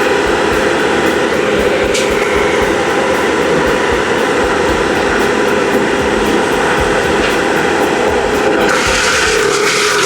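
Tree-work machinery running steadily: a constant, even engine noise with a steady hum.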